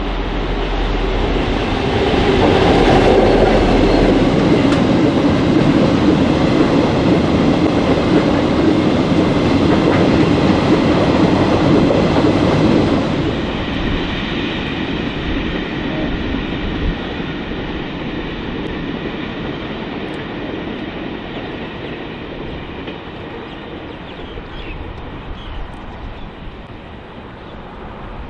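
Diesel locomotive hauling a train of empty aggregate hopper wagons passes close by: loudest for the first dozen seconds, then the wagons keep rolling on the rails and the sound fades steadily as the train draws away.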